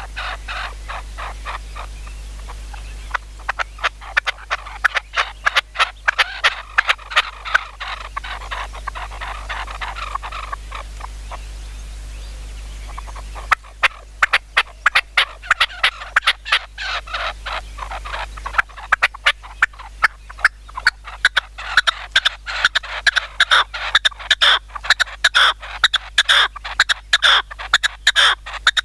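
Red-legged partridges calling in rapid trains of sharp clicking notes, several a second, with a short lull past the middle. The calling grows denser and louder toward the end.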